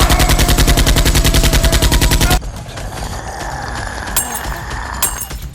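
A rapid burst of automatic gunfire, about ten shots a second, that stops abruptly about two and a half seconds in, followed by a couple of single shots near the end.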